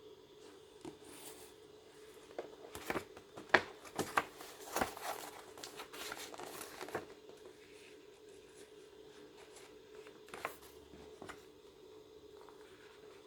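Irregular crinkling, crackling and sharp clicks of something being handled, busiest from about two seconds in to about seven seconds, with a brief few more near the end, over a steady low hum.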